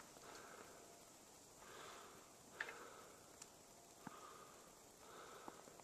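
Faint crunching footsteps on a snow-covered trail, a soft step about once a second, with a few light clicks.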